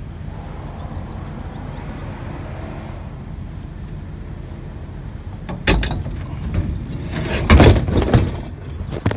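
Truck engine running steadily with a low rumble, with loud clunks and clatter about six seconds in and again near the end.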